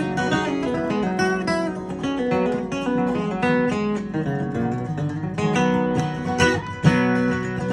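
Steel-string acoustic guitar flatpicked in bluegrass style: quick runs of single notes over strummed chords, with one hard-struck stroke near the end.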